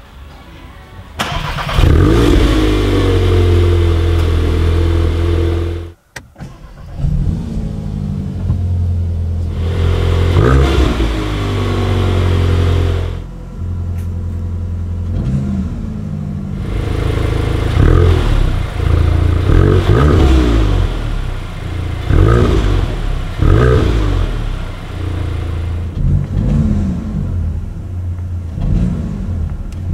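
2021 VW Golf 8 GTI's 2.0 TSI turbocharged four-cylinder engine starting about a second in and idling, with the car in park. From about 7 s it is revved in a series of short blips, each rising and falling back to idle, about a dozen in all.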